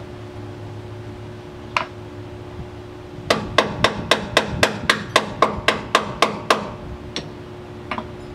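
Hammer striking metal: a single blow, then a quick run of about a dozen blows at about four a second, then two lighter ones, over a steady hum.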